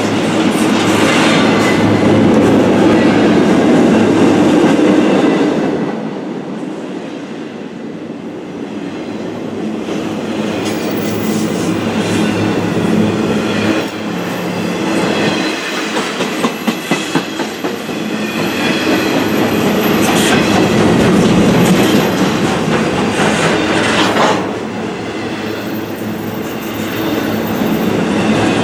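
Union Pacific intermodal freight train of double-stack container cars rolling past close by: a steady roar of steel wheels on rail that rises and falls as the cars go by, with wheels clicking over rail joints and a quick run of clacks about halfway through.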